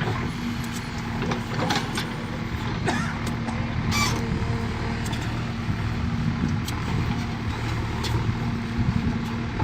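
Diesel engine of a JCB 3DX backhoe loader running steadily at a constant pitch, with a few short sharp clicks or knocks in the first half.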